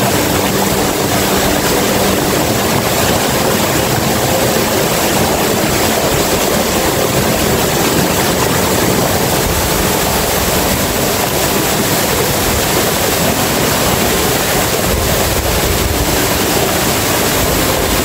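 Waterfall's falling water, a loud steady rush with no break.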